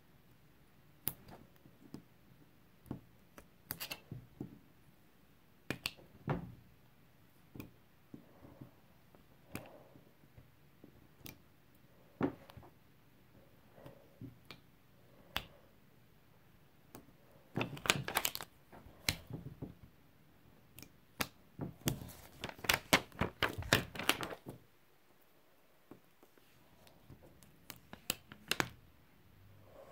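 Heat transfer vinyl being weeded with a pointed weeding pick: scattered sharp clicks and crackles as the pick lifts the vinyl and the plastic carrier sheet flexes against the table. There are two denser runs of crackling, one a little past halfway and another a few seconds later.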